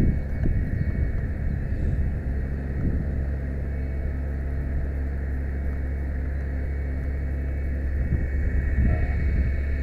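Aerial ladder truck's engine and ladder hydraulics running steadily during ladder operation: a constant low hum with a faint steady whine above it. Irregular wind buffets on the microphone come and go, stronger near the end.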